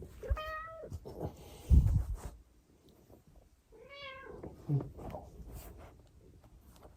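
A cat meows twice, about three and a half seconds apart, with a heavy thump between the two meows.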